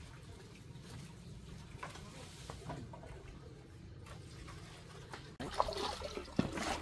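A faint low hum with a few soft knocks. About five seconds in, it switches suddenly to louder water pouring and splashing into a large glazed earthenware jar.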